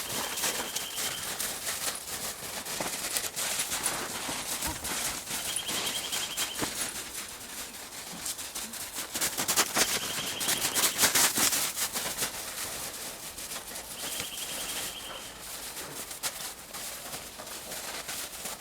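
Steady crackling and rustling of footsteps through forest floor litter, busiest about halfway through, with a short trilled bird call repeating about every four to five seconds.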